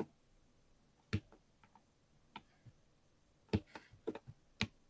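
Keys on a mechanical keyboard pressed one at a time, a single sharp keystroke roughly every second at first, then several in quicker succession near the end.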